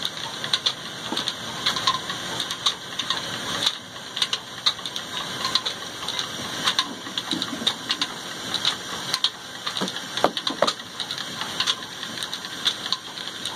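Stone flour mill (chakki) running, driven by an old black diesel engine: a steady mechanical clatter with frequent sharp rattling clicks.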